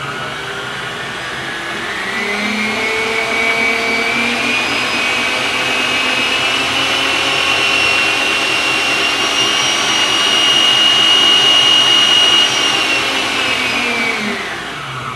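Arno stand mixer's 300-watt motor running with the bowl off, its whine stepping up in pitch several times as the speed is turned up. Near the end it winds down and stops.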